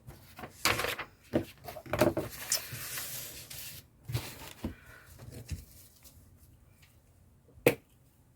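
Paper and craft scraps being handled at a table: scattered rustles and light knocks, a longer rustling or scraping stretch a couple of seconds in, then one sharp click near the end.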